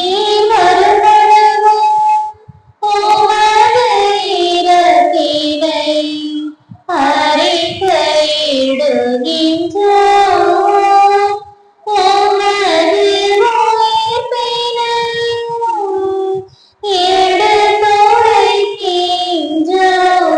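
Voices singing the memorial acclamation of the Catholic Mass in Tamil: a melody in about five phrases, each separated by a short pause for breath.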